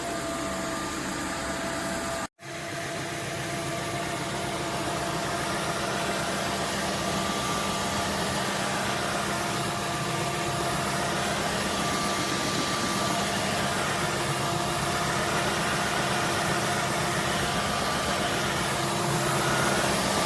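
Roborock F25 RT wet-dry vacuum running steadily: an even rushing noise with a steady motor whine. It cuts out for an instant about two seconds in, then carries on.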